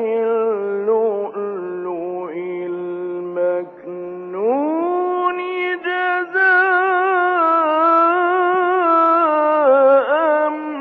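A male Quran reciter's voice in melodic, drawn-out tajweed recitation, holding long ornamented notes. About four seconds in the voice glides up to a higher pitch and carries on there with small turns.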